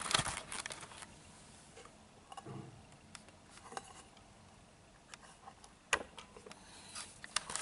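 Light clicks and knocks of a pressure rice cooker's detachable metal inner lid with its rubber gasket being handled and pulled off the cooker's lid. There is a cluster of clicks at the start and a sharper click about six seconds in.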